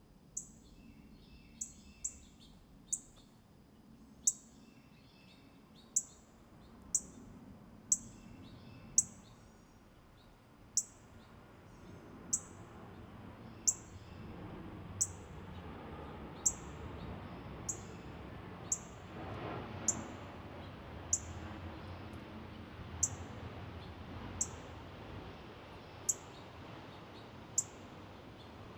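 A small songbird repeating a short, very high call that drops quickly in pitch, about once every second or so, with softer lower chirps in the first ten seconds. A faint low rumble lies underneath.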